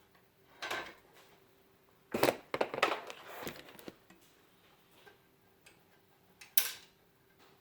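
Sharp metallic clicks and clatter of computer-case parts being handled at the expansion slots: a single click, then a burst of rattling clatter for about two seconds, then one more sharp click near the end.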